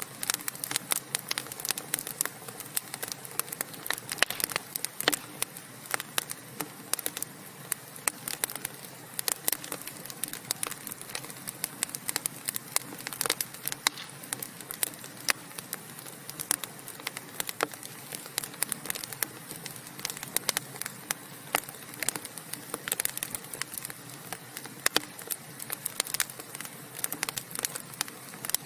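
Burning wood fire crackling: a steady low hiss with many sharp snaps and pops at irregular intervals, several a second.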